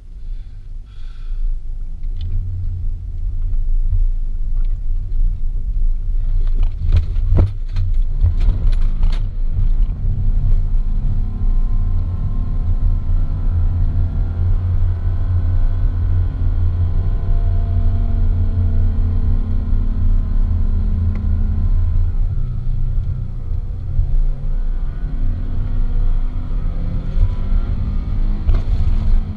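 Nissan Pathfinder engine working hard as it drives up sand dunes, heard from inside the cabin as a deep, loud rumble that builds as it pulls away, its note rising and falling with the revs. A cluster of sharp knocks about seven to nine seconds in.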